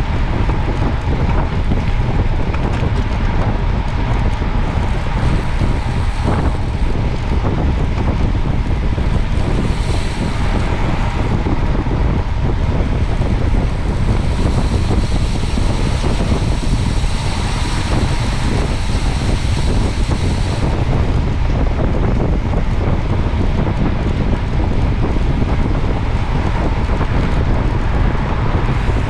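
Steady, loud wind rush buffeting the microphone while moving along a road, with a faint high whine from about 14 to 20 seconds in.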